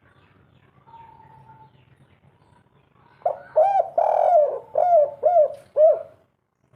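Spotted dove (tekukur) cooing: after about three quiet seconds, a loud phrase of about six arching coos, the third drawn out longer than the rest.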